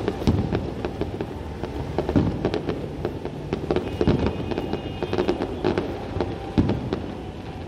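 Aerial fireworks shells bursting in quick, irregular succession, heard from a distance: low booms several times a second with sharp crackling reports on top, over a continuous low rumble.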